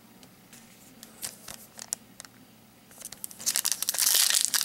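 A trading-card pack wrapper is torn open and crinkled, a loud crackly rustle starting about three seconds in. Before it there are a few faint taps.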